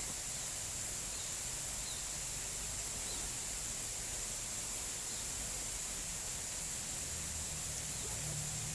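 Steady outdoor ambience with a constant high-pitched insect drone and a few faint, short bird chirps every second or two.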